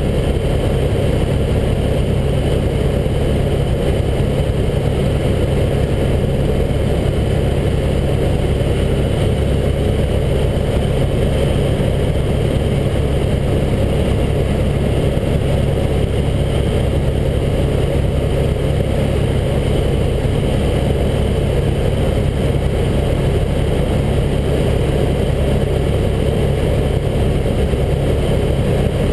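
Helicopter engine and main rotor running in steady cruise flight, heard from inside the cabin as a loud, unchanging low drone.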